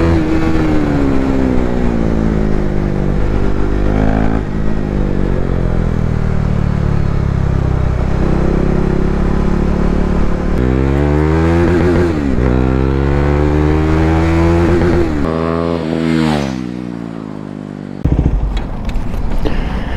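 KTM RC 390's single-cylinder engine riding along. Its revs fall at first, hold steady, then rise and drop several times before winding down about sixteen seconds in. A burst of rough noise follows near the end.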